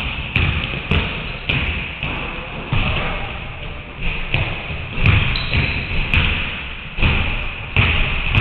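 Several basketballs dribbling and bouncing on a hardwood gym floor, irregular overlapping thuds a few times a second, each ringing out in the big hall.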